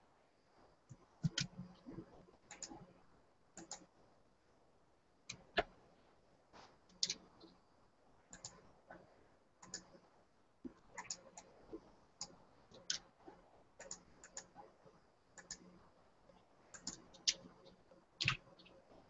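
Faint, irregular light clicks and taps, about one or two a second, some coming in quick pairs.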